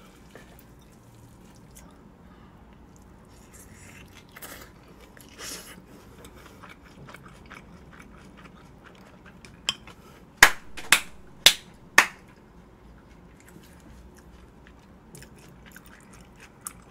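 Close-miked chewing of a mouthful of chive bibimbap, soft and wet, with a quick run of about five sharp clicks around ten to twelve seconds in.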